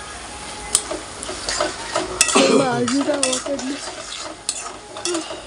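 Metal spatula stirring and scraping a tomato sabzi in a metal kadhai, with repeated clicks against the pan over the steady sizzle of frying.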